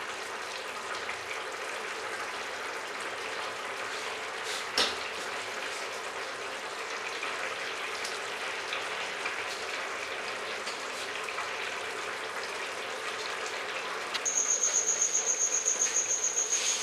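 Tomato-onion curry gravy simmering in a steel pan, a steady soft bubbling hiss, with a single click about five seconds in. Near the end an insect starts a high, steady, rapidly pulsing chirp that becomes the loudest sound.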